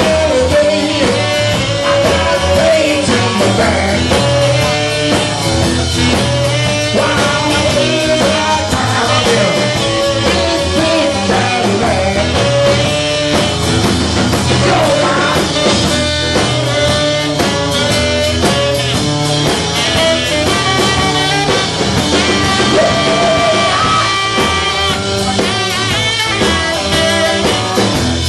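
Live rock and roll band playing loud: electric guitar, drums, saxophone and a male lead vocal, recorded from within a packed pub crowd, so the sound is rough.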